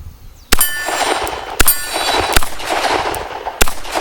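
A Colt Diamondback .38 Special revolver firing three loud shots, about half a second in, a second later and near the end, each trailing a long echo. A ringing metallic clang follows the first two shots, typical of bullets striking a steel target plate.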